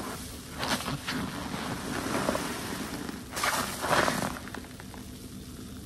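Wet car wash waffle sponge soaked in detergent being squeezed, giving soapy squelches in bursts, louder at about a second in and again around three and a half to four seconds.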